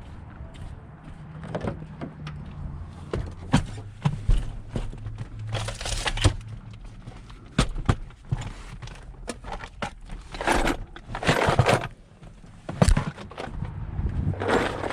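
Handling noise of tools and metal: scattered clicks and knocks with a few longer scraping, rattling stretches, as of someone sorting through driver bits to find one that fits a 5/16 bolt.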